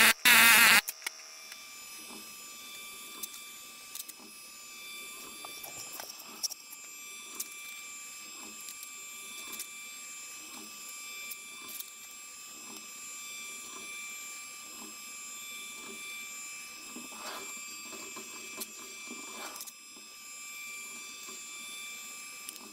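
Pneumatic needle scaler chattering loudly for under a second, then cutting off. After that come soft, scattered scratches and dabs of a paintbrush laying black paint onto the crane's metal leg, over a faint steady high hum.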